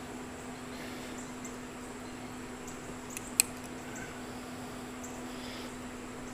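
A single sharp click about halfway through, over a steady low hum and faint, repeated high chirps.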